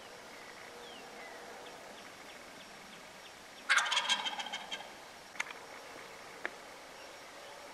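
Wild turkey tom gobbling once, about halfway through: a loud, rapid rattle lasting about a second that trails off. Two short, sharp clicks follow.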